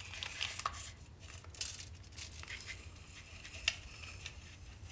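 Light clicks and scrapes of a small retractable tape measure as its tape is pulled out and held taut, with one sharper click near the end.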